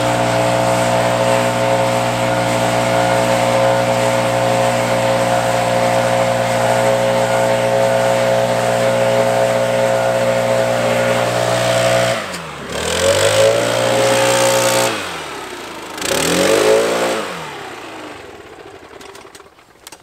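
Stihl BR 800 C backpack blower's two-stroke engine running steadily at full throttle, with air rushing from the nozzle. About twelve seconds in, the throttle is let off and blipped up twice, then the engine dies away.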